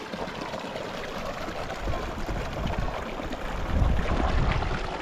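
Mountain creek rushing: a steady wash of running water, with a low rumble about four seconds in.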